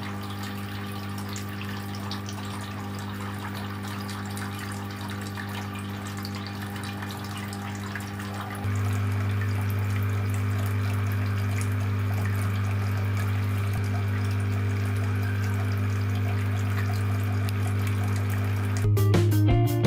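Small electric water pump humming steadily under water trickling and splashing through a clay-pot tabletop fountain. The hum gets louder about nine seconds in.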